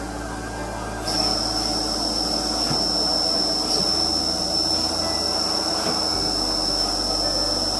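Vertical machining center milling an aluminium housing with an end mill: a steady high-pitched whine from the spinning cutter over a dense machine hum, starting suddenly about a second in.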